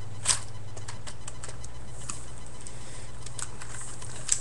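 Hard plastic parts of a Transformers Armada Optimus Prime toy clicking and rattling as they are handled and pushed into place, a few sharp clicks spread through, over a steady low hum.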